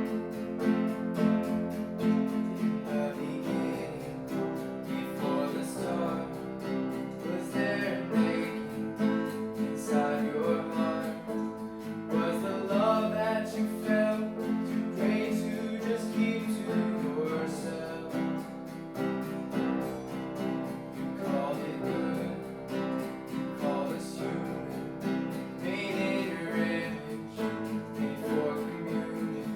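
Acoustic guitar strumming a steady worship-song accompaniment.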